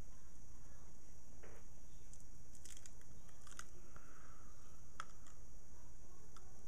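Faint sticky clicks and crackles from a film of liquid latex over the lips as the mouth opens and the latex stretches and tears, over a steady electrical hum and hiss.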